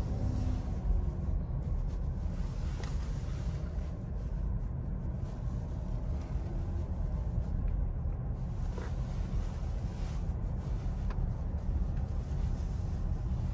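Steady low rumble of a 2023 Chevrolet Blazer RS driving at about 15 mph, heard from inside the cabin: engine and tyre noise, with a few faint ticks.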